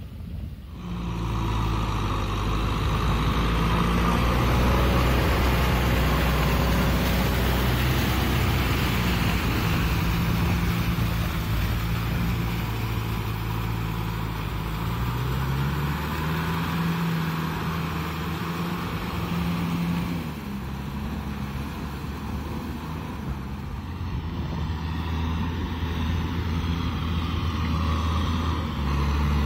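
Kubota tractor's diesel engine running steadily under load as it drives a rotary tiller through flooded paddy mud. The engine note drops to a different pitch about halfway through and shifts again a few seconds later.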